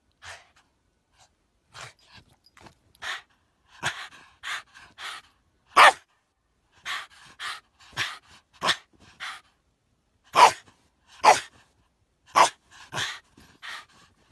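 A dog making a run of short, breathy huffs and barks at an irregular pace, a few of them much louder than the rest.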